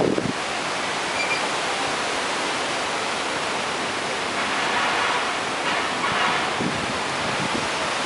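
Storm wind blowing as a steady rushing noise, swelling a little about halfway through.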